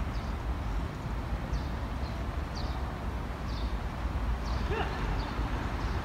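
Short high bird chirps about once a second, with one lower call near the end, over a low steady rumble.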